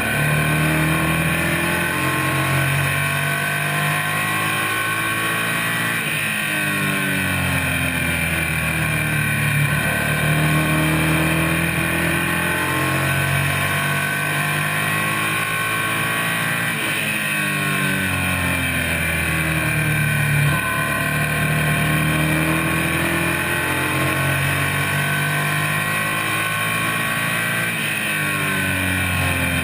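Stock car's racing engine heard from inside the cockpit at speed. Its pitch climbs, then drops back, over and over about every five to six seconds, as the car accelerates and lifts around the oval.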